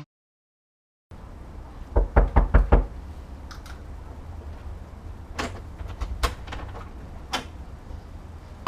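Knuckles knocking on a door: after about a second of dead silence, a quick run of five knocks, then a few scattered lighter taps.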